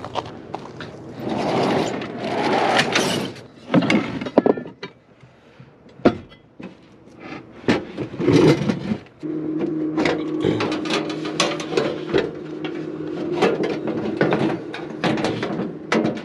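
Clicks, knocks and clatter of things being handled. From about nine seconds in, a steady low hum starts and carries on under them.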